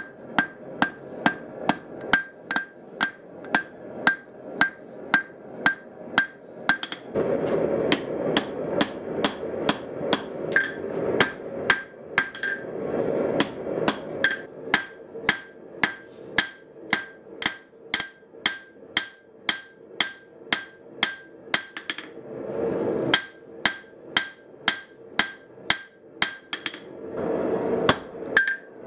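Hand hammer blows on red-hot spring steel over an anvil, a steady rhythm of about three strikes a second, each with a short ring from the anvil. The hammering pauses briefly a few times.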